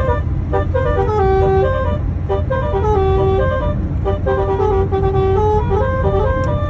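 Basuri musical horn on a bus playing a 'telolet' tune: a run of short and held horn notes stepping up and down in pitch, over a steady low engine rumble.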